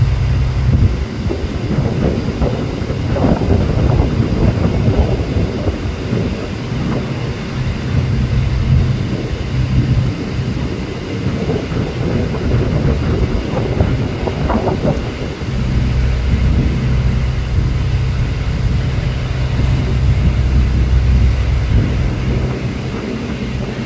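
A fishing boat's engine running with a steady low drone under gusty wind on the microphone and rushing water. The wind and water noise is heaviest in the first two-thirds, and the engine drone comes through clearest from about two-thirds of the way in.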